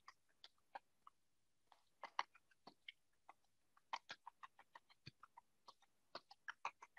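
Faint, irregular clicks of a stylus tapping on a drawing tablet as small marks are dotted in, coming in quick runs of several taps.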